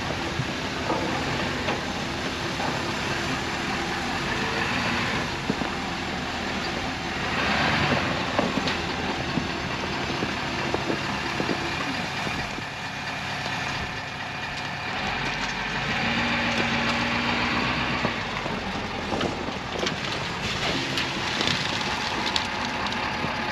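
Pickup truck engine running steadily, with scattered short clicks and rattles.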